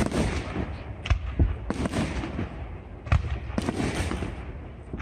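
Aerial fireworks display bursting overhead: about six sharp bangs at irregular intervals, with a low rumble between them.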